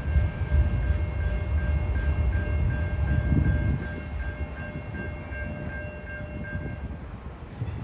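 Norfolk Southern freight train rolling through a grade crossing, a low rumble that fades after about four seconds. Over it the crossing's warning bell rings steadily at about three strokes a second and stops near the end.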